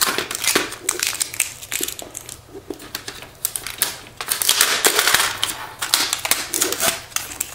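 Packing tape being peeled off a plastic printer paper cassette: crackling tape rips and clicks of the plastic tray being handled, in several stretches, the loudest a little past the middle.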